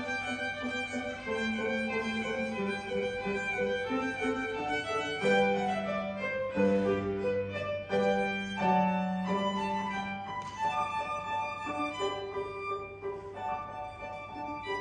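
Violin playing a classical melody with grand piano accompaniment, swelling louder in the middle.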